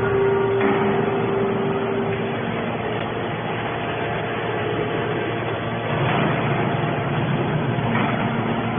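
Heavy scrap-metal processing machinery running with a steady, dense mechanical din, with a held tone over it for the first two seconds.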